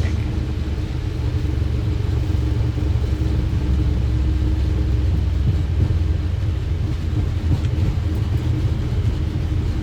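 Steady low rumble in a Boeing 737 cockpit as the airliner rolls out and brakes on the runway just after landing, with a faint steady hum that fades about three seconds in.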